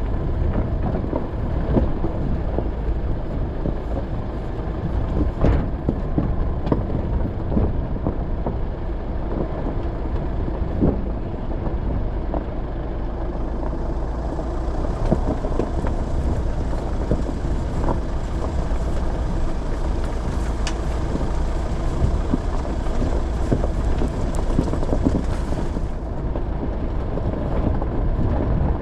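Off-road vehicle driving over a rough mountain track: steady engine and rolling noise, with scattered sharp knocks and rattles from the bumpy ground.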